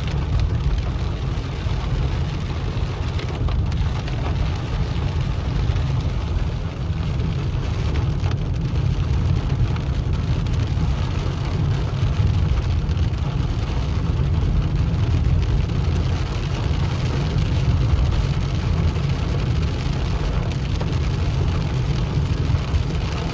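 Steady road and engine noise inside a car driving through a heavy downpour, with rain falling on the windshield and roof.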